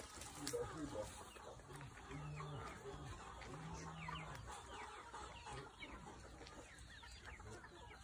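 Chickens clucking and calling, a few low drawn-out calls in the first half, then many short high falling chirps in the second half.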